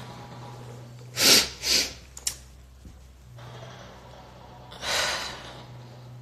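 A crying woman sniffling twice in quick succession about a second in, then drawing a longer breath near the five-second mark.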